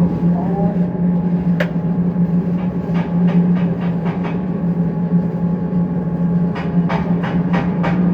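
Steady low hum of workshop machinery, with scattered sharp metallic clicks and knocks and a quicker run of them near the end.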